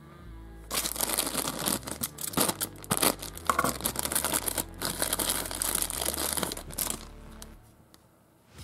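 A thin plastic toy sachet crinkled and torn open by hand: dense crackling for about six seconds, stopping shortly before the end.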